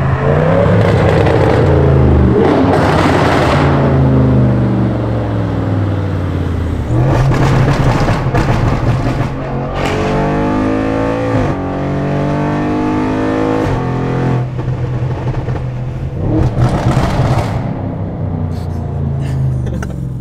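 Straight-piped Audi RS6's twin-turbo V8 exhaust, revving and accelerating with its pitch rising and falling several times.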